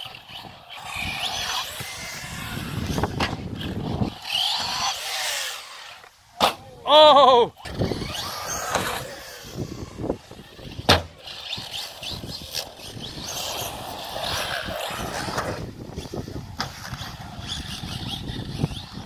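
Traxxas Slash 4x4 electric RC truck driving and jumping on concrete: motor whine and tyre noise, with sharp knocks as it lands. A loud wavering pitched sound comes about seven seconds in.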